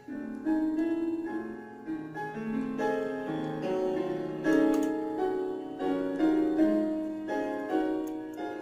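Piano music.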